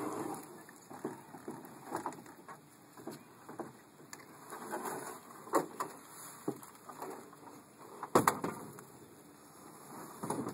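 A canoe being handled and turned over by hand: scattered knocks, bumps and scrapes of the hull against the ground and the rack, with the loudest thumps about eight seconds in.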